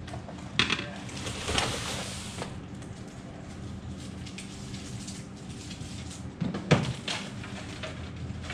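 Cut packaging being handled and dropped into a trash can: a couple of knocks and a short crinkly rustle early, then a few thuds a little before the end, over a steady low hum.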